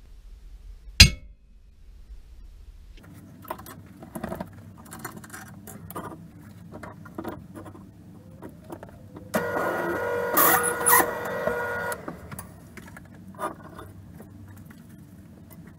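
Metal clanks, knocks and clicks as a steel machine vise and stainless steel plates are handled on a drill press's cast iron table, with one sharp clack about a second in. A louder stretch of scraping, ringing metal lasts about two and a half seconds past the middle.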